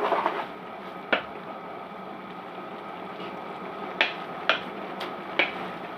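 Pot of keema and potato filling simmering with a steady bubbling hiss, and a spoon clinking against the pot once about a second in and four times near the end.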